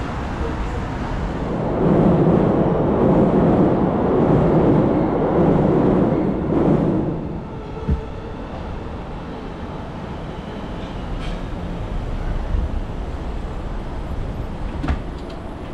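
A train passing on the elevated railway viaduct overhead: a rumble that swells about two seconds in and fades away after about seven seconds, leaving steady street background.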